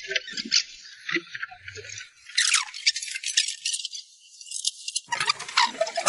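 Spicy hotpot broth of beef tallow and chilli base heating on the burner, crackling with rapid small pops.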